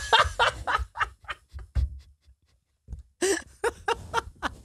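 Several people laughing together in short rapid bursts, dying away about two seconds in, then breaking out again about a second later.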